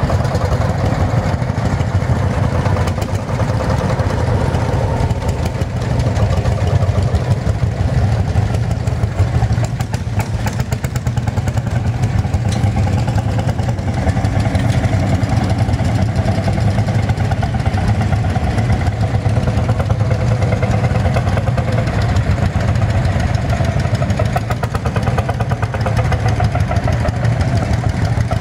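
Lanz Bulldog tractor's single-cylinder hot-bulb two-stroke engine running steadily with a fast, even beat.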